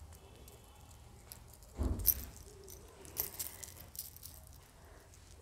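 Small metallic clicks and jingling from a dangling earring as it is fastened into the ear, with a louder dull thump about two seconds in.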